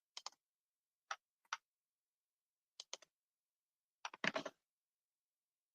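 A few faint, short clicks spaced irregularly, with a short cluster of taps about four seconds in, and dead silence between them.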